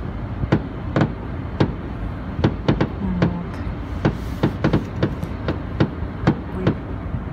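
A fireworks display going off: a rapid, irregular string of sharp bangs from bursting shells, about two to three a second, over a low steady rumble, heard from inside a car.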